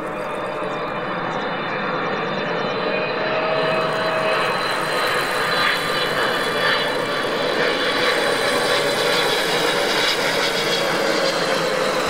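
Jet engines of a twin-engine airliner on approach with landing gear down, a dense rumble with a steady whine that grows gradually louder as the plane comes closer.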